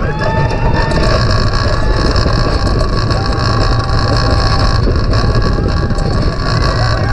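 Roller coaster train running along its track through an inversion, heard from a camera mounted on the train: a loud, steady rumble of the wheels with wind rushing over the microphone. The riders' shouts and laughter rise over it at the start and again near the end.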